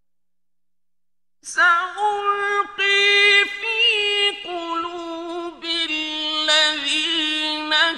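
A male Quran reciter chanting in a high voice, drawing out long wavering notes in melismatic phrases. He starts about a second and a half in, after a silent pause between verses.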